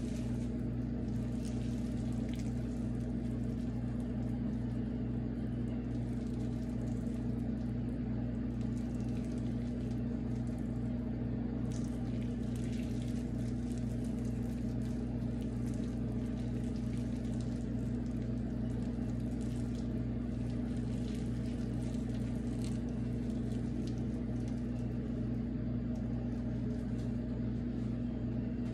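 A steady low hum holding one pitch, with faint scattered crackles above it.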